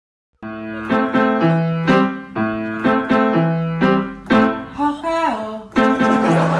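Background music: keyboard notes over a steady beat of about two hits a second, starting after a brief silence about half a second in.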